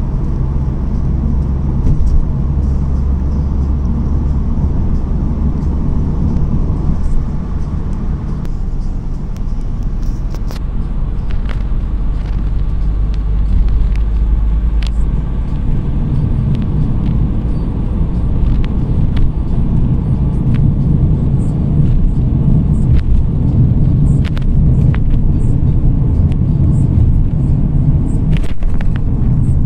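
Road noise heard from inside a moving car's cabin: a steady low rumble of tyres and engine, with scattered light clicks and knocks in the second half.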